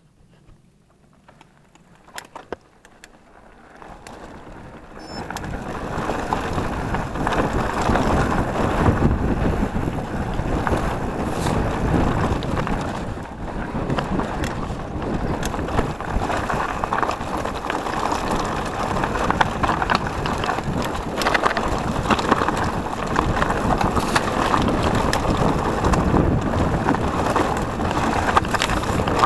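Wind rushing over a handlebar-mounted camera microphone as a mountain bike rides a rocky trail, mixed with the clatter of tyres and bike rattling over stones. Quiet with a few clicks at first, then the noise swells about four to six seconds in and stays loud and steady.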